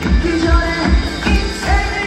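Loud live stage music played through the PA speakers, with a steady heavy bass-drum beat about three times a second under sustained melody.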